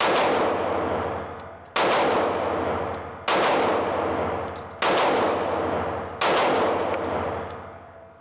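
Taurus G2c 9mm pistol fired five times at a steady pace, about one and a half seconds apart. Each shot rings out and fades before the next.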